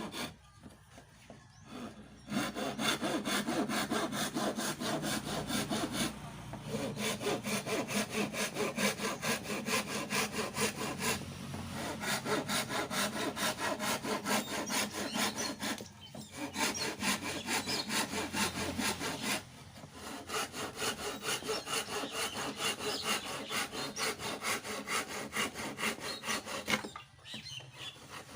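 Hand saw cutting through hardwood in quick, even back-and-forth strokes, stopping briefly a few times before carrying on.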